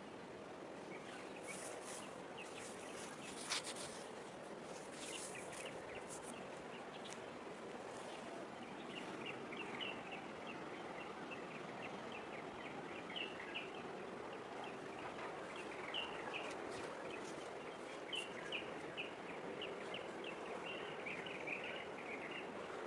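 Small birds chirping in short, frequent notes over a steady, low background hum of distant harbour and city noise. A few sharp clicks sound in the first several seconds, one louder than the rest.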